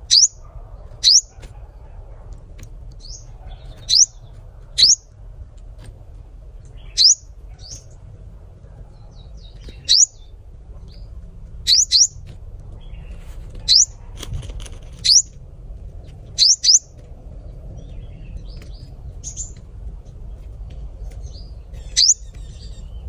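Sunbird calling: short, sharp, high-pitched chips that sweep upward, some doubled in quick pairs, repeated every one to three seconds. A steady low rumble runs underneath.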